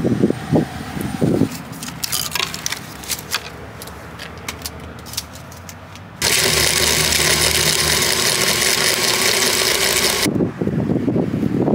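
A run of clicks and taps, then a portable BlendJet blender's motor starts abruptly, runs steadily for about four seconds blending fruit and almond milk into a smoothie, and cuts off suddenly.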